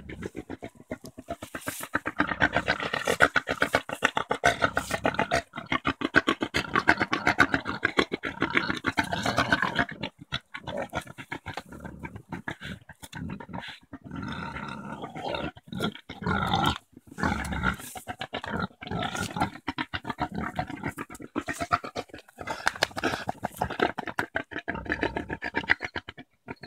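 Pigs grunting in long runs of rapid, rhythmic grunts with short pauses between them: a boar courting a sow that is not receptive.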